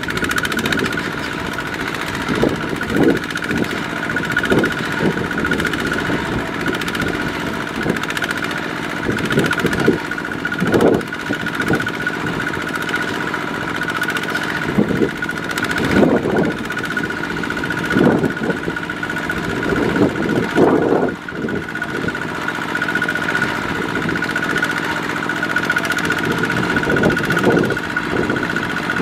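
Two-wheel walking tractor's single-cylinder diesel engine running under heavy load as it hauls a trailer of rice sacks through deep mud. It holds a steady note with a high whine over it, and it swells louder at irregular moments every second or two.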